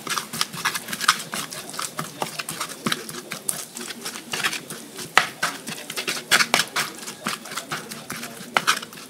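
Stone pestle (ulekan) grinding fried chilies, tomatoes and shrimp paste in a cobek mortar. It makes irregular knocks and scrapes of stone on the mortar, several a second.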